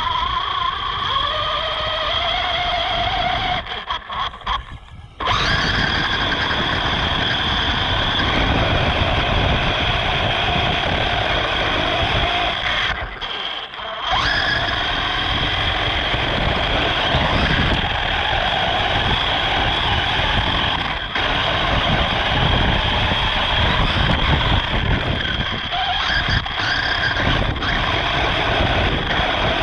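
RC car's motor whining, its pitch rising and falling as the throttle changes, over a steady rumble. The sound drops away briefly twice: about four seconds in and again around thirteen seconds in.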